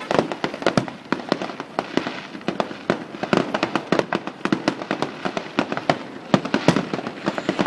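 Fireworks going off: many sharp bangs and crackling pops in quick, irregular succession, several a second.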